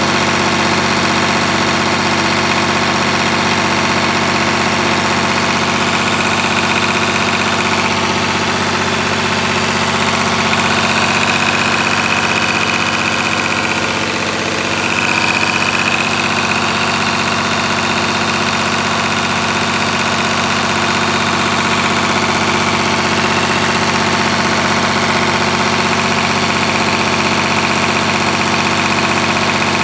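EH700T engine running steadily, with an exhaust leak.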